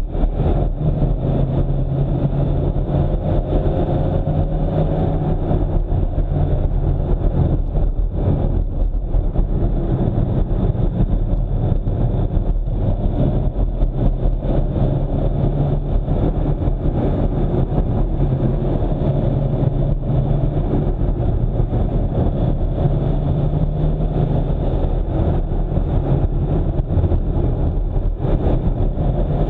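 Car driving along a road: a steady engine drone with tyre and road noise, its pitch shifting a little with speed.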